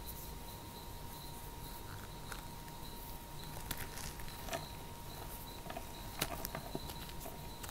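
Fingers squeezing and crushing clumps of dyed cornstarch, giving soft, irregular crunches and crackles.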